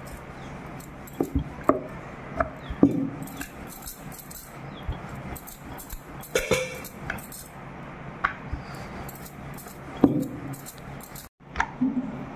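Wooden rolling pin rolling chapati dough on a wooden board, with irregular knocks of the pin against the board and light clinking of glass bangles on the wrist, over a steady low hum.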